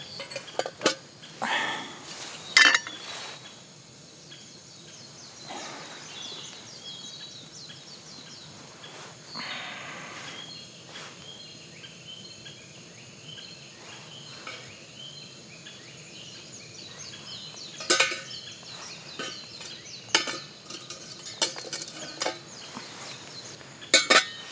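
Scattered clinks and knocks of cookware being handled at a campfire, with the sharpest knocks about 3 s in, around 18 s and twice near the end, and a brief rushing noise about 10 s in.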